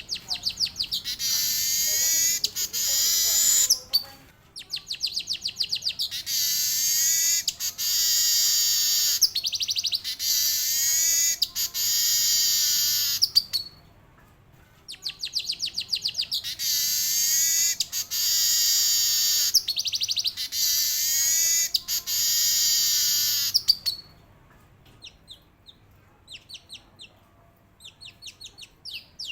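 Male manyar weaver singing: three long song phrases, each opening with a rapid run of ticking notes that runs into a long, high, rippling buzzy wheeze. Softer scattered ticks follow near the end.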